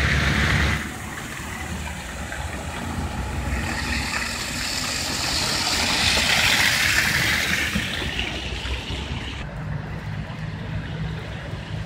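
A car driving past on a snowy, slushy road: the hiss of its tyres on wet snow swells to a peak about six seconds in and fades away. Near the end the sound changes to a quieter, steady low rumble.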